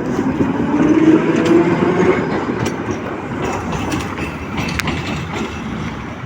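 Tram pulling away: its electric traction drive whines, rising in pitch over the first two seconds, then wheel-on-rail rolling noise with scattered sharp clicks.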